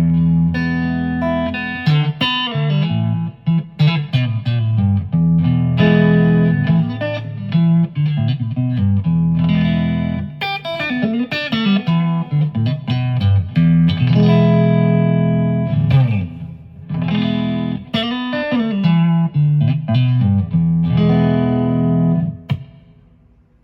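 Electric guitar played through amplifiers: chords struck and left to ring, with picked notes and a few pitch bends. The playing stops shortly before the end.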